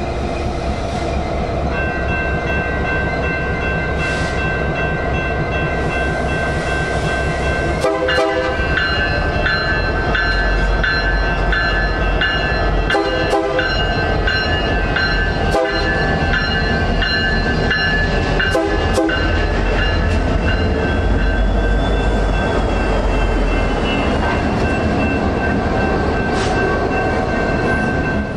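Diesel freight locomotive's multi-tone air horn sounding a string of long blasts with short breaks between them, over the low rumble of the passing train.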